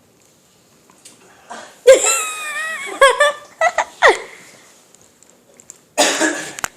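A person laughing in pitched, wavering bursts, then a short breathy cough-like burst near the end.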